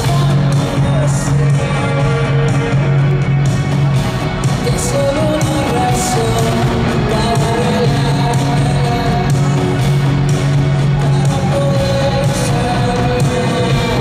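A live rock band playing: a male singer sings over electric guitar, a held bass line and drums.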